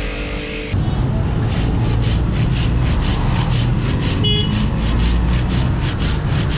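A machine starts up about a second in and runs with a heavy low rumble and a regular pulsing about four times a second, with a brief high tone near the middle.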